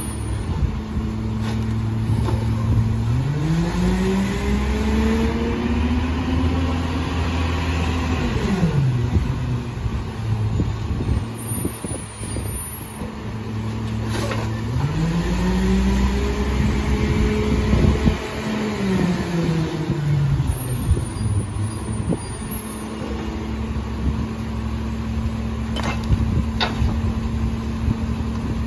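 Engine of a McNeilus rear-loader garbage truck idling, then revving up and easing back down twice, each rise lasting about six seconds, as the hydraulic packer cycles to compact the load in the hopper. Knocks and clatter of bags and bins being thrown in between.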